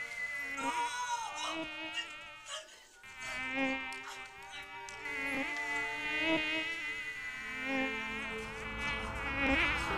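A swarm of mosquitoes whining: several high buzzing tones overlap, each wavering in pitch, with a brief lull about three seconds in.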